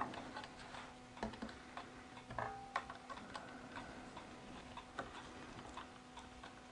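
Faint, irregular small clicks and taps of metal camera-rig parts being handled and fitted together while a battery plate is mounted, over a low steady hum.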